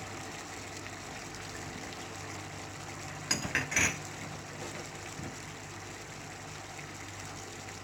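A pan of chicken gravy simmering with a steady hiss, and a short cluster of metal clinks about three and a half seconds in, as a spoon knocks against the pan.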